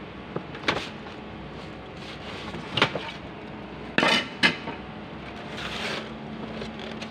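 Discarded items being handled and shifted in a bin: a few sharp knocks and clatters of hard plastic, the loudest about three and four seconds in, with a brief rustle near six seconds.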